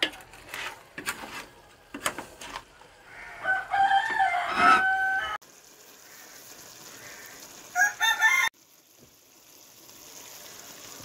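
A few scrapes and knocks of a spoon stirring in a clay pot, then a rooster crowing loudly for under two seconds about three and a half seconds in, and a shorter rooster call near eight seconds.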